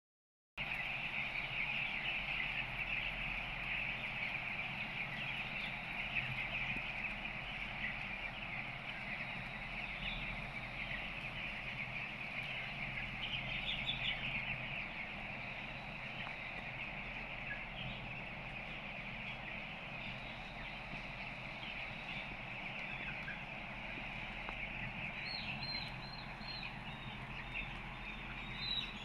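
A flock of two-week-old broiler chicks peeping together in a dense, unbroken chorus, with a few separate higher peeps standing out near the end. A steady low hum runs underneath.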